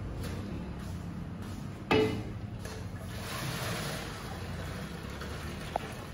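A metal mug clanks once against a large aluminium cooking pot about two seconds in, then hot sprout-cooking water is poured from the mug through a steel strainer into a steel drum, splashing for a couple of seconds. A steady low hum underlies it.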